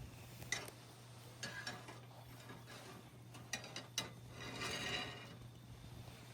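A few light clicks and knocks of camp cooking gear being handled, with a short scraping rustle about four and a half seconds in.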